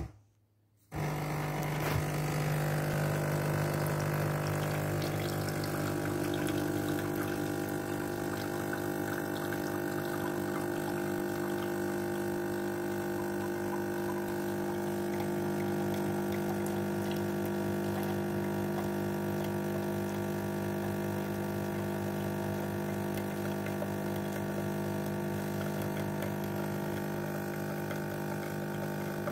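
Espresso machine's pump running steadily during the extraction of a shot, starting about a second in.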